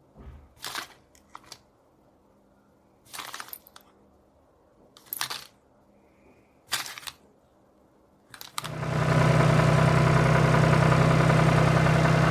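Wooden popsicle sticks clattering as they are lifted out of a plastic toy trolley and dropped onto a pile, in short separate clicks. About eight and a half seconds in, a much louder steady noise with a low hum takes over.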